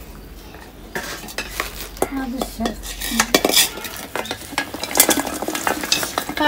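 Fresh flat bean pods tipped from a woven cane scale pan into a metal bowl: a run of rustling and clattering of pods against the metal, starting about a second in.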